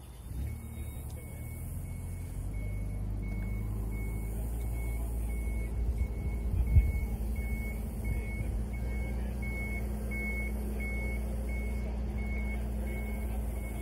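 A vehicle's reversing alarm beeping steadily, about three beeps every two seconds, over the low, steady hum of its engine running. A single thump sounds near the middle.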